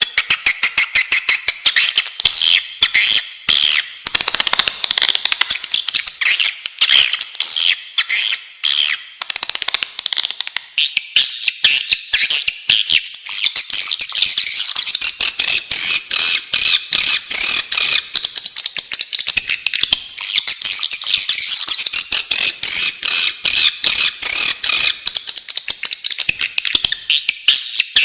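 Swiftlets twittering in a dense, continuous chorus of high chirps laced with rapid clicks. This is a recorded swiftlet lure call, played to draw the birds into a nesting house.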